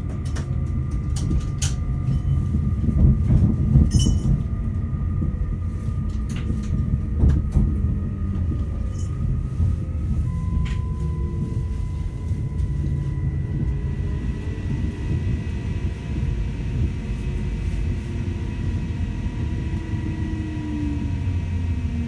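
On-board sound of a Northern Class 331 (CAF Civity) electric multiple unit slowing into a station: a steady rumble of wheels on rail, with a few sharp clicks over the first eight seconds. Thin steady electrical tones shift to a lower pitch about ten seconds in, and a whine falls in pitch near the end as the train comes almost to a stop.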